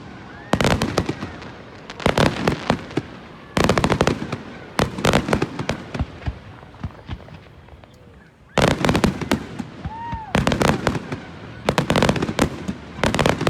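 Aerial fireworks going off: a run of loud bangs, each trailing off in a spatter of crackles, with a lull of about two seconds past the middle before more shells burst.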